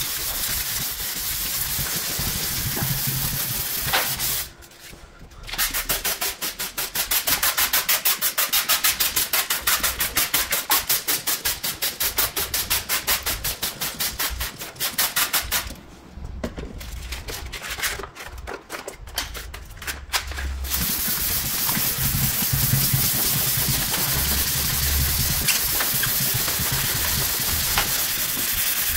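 Sandpaper rubbed by hand over the clear coat of a car's front fender, a steady rasp. A few seconds in it stops and a trigger spray bottle is squeezed quickly, about three spritzes a second for roughly ten seconds. The hand sanding resumes about 21 seconds in.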